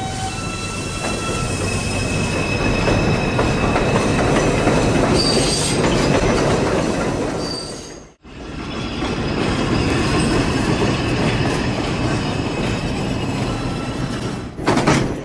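R142 subway train running on the rails, with a steady rumble and high wheel squeal. About eight seconds in the sound drops out for a moment, then the same train running and squeal sound comes back.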